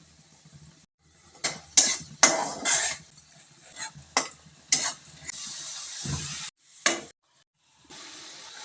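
Kitchen utensils clattering: a run of sharp metal clinks and knocks, then a hiss lasting about a second and a low thump.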